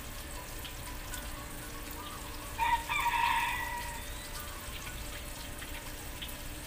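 A rooster crowing once, starting about two and a half seconds in and lasting over a second.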